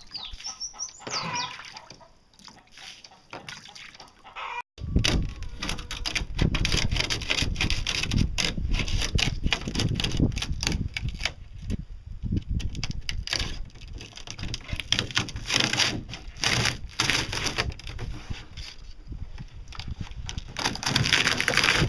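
A rooster crowing in the first couple of seconds. From about five seconds in, loud, uneven rumbling and scraping noise with many knocks takes over and is the loudest thing.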